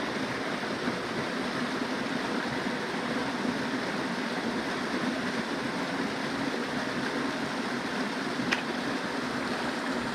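Stream water rushing steadily, with a faint click about eight and a half seconds in.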